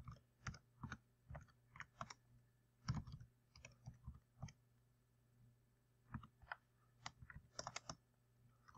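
Faint keystrokes on a computer keyboard, typed irregularly, with a pause of about a second and a half just past the middle.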